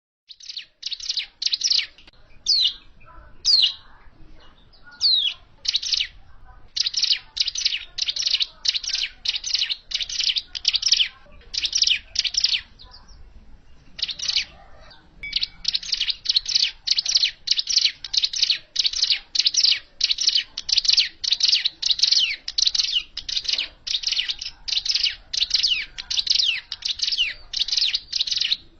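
Ciblek gunung (a prinia) singing a fast series of short, high, chirping notes, about two to three a second. There are a few sliding notes near the start and a brief pause around the middle. This is the bird's natural song, played as a lure call for trapping.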